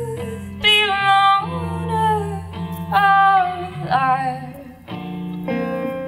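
A woman singing short phrases over her own electric guitar, which plays steady held chords underneath.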